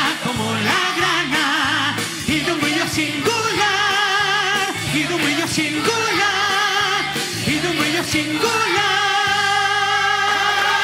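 Children's choir and a male lead singer singing a Christmas song over a backing track, ending on a long held chord near the end.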